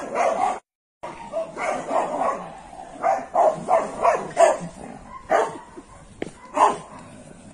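A dog barking in a run of short, repeated barks, broken by a brief dropout about half a second in.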